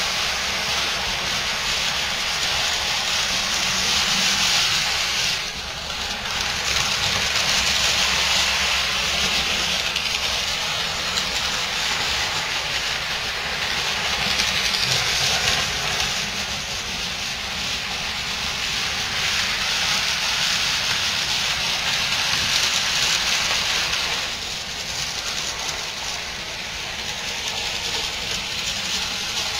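HO and N scale model trains running on the layout: a steady rushing hiss of small motors and wheels rolling on the track that swells and fades, dipping briefly twice.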